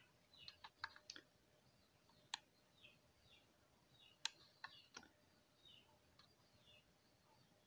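Computer mouse clicking: a quick run of clicks in the first second or so, then two sharp single clicks about two and four seconds in, and a few more near five seconds. Faint birds chirp in the background, a repeated short falling call.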